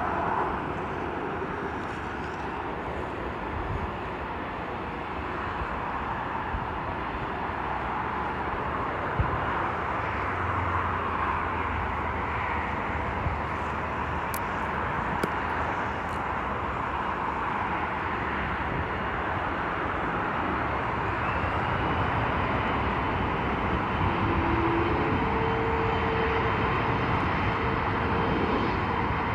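Jet airliner on approach to land, its engine noise building slowly and growing louder toward the end. A high engine whine rises in pitch and then holds about two-thirds of the way through.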